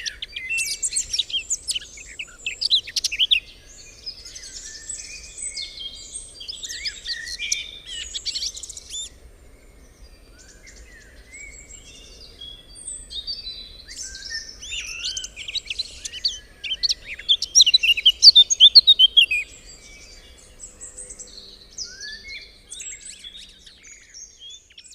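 Several songbirds singing and chirping together in a dense chorus of quick trills, whistles and rapid chirps, busiest and loudest a little after the middle.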